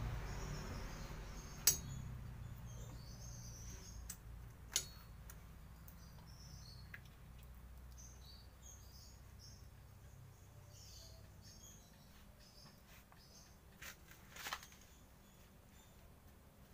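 A few sharp clicks of metal brake parts being handled at a drum-brake backing plate, the loudest about two seconds in, others near five seconds and near the end. Faint birds chirp in the background, and a low rumble fades away over the first few seconds.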